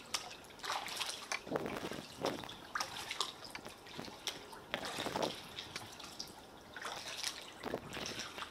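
Water splashing and dripping around a paddled kayak: small, irregular splashes and drips every second or so.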